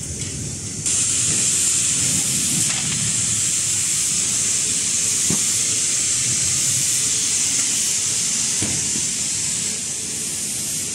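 A hand-held air tool blowing: a steady, loud hiss of rushing air that switches on abruptly about a second in and holds steady, over the low rumble of running factory machinery.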